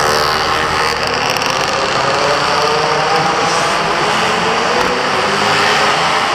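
Several go-kart engines running at once on the track, their pitches slowly rising and falling over a steady loud drone.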